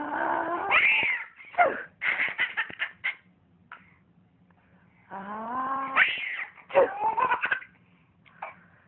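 Babies squealing and giggling in high-pitched shrieks that come in several bursts, with a quiet gap of about two seconds in the middle.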